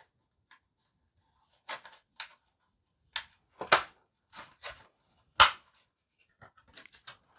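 Irregular sharp clicks and taps from handling the unboxed hand warmer and its packaging. Two louder snaps come in the middle and later, among fainter taps.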